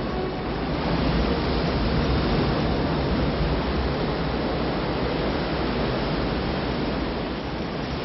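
Steady roar of a large mass of water rushing and pouring down a concrete dam spillway.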